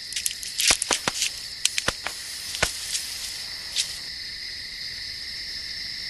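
Night insects chirring in two steady high-pitched tones, with about eight sharp clicks and pops scattered through the first four seconds.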